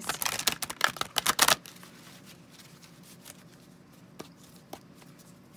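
Deck of oracle cards being shuffled by hand, a rapid run of card clicks and flutters for about a second and a half, then a few isolated soft clicks as the cards are handled.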